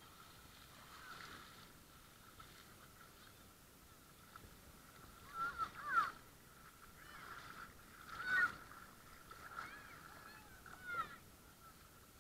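Children's muffled shrieks and squeals, several short pitch-bending cries with the loudest about halfway through and again about two-thirds through, over a faint steady high tone.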